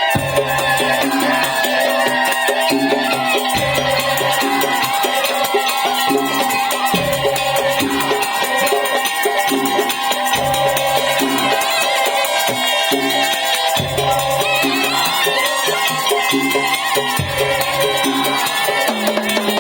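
Madurese tong-tong ensemble playing: a sustained melodic line over a repeating pattern of low drum strokes, with a dense rattle of shakers and jingles on top.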